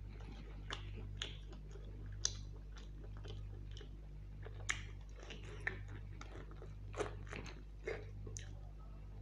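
Close-up chewing and biting of mutton curry and puri, with irregular wet smacks and sharp mouth clicks, a few of them louder, over a steady low hum.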